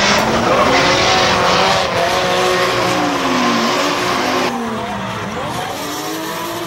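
Drift cars' engines revving hard, rising and falling in pitch, with tyres screeching as the cars slide sideways through a tandem drift. The tyre noise drops away about four and a half seconds in, leaving mostly the engines.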